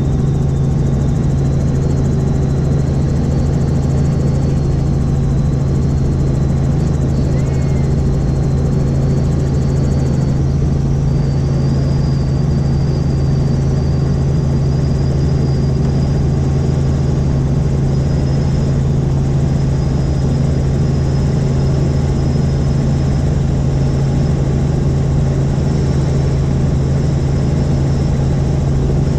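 Helicopter in flight: the rotor and engine give a steady, loud drone, with a thin high whine that slowly creeps up in pitch.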